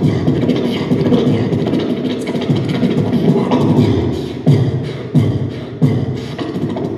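A beatboxer performing into a handheld microphone, amplified through stage speakers: a dense groove of deep bass sounds and sharp clicks, with three heavy kick-drum sounds about two-thirds of a second apart a little past halfway.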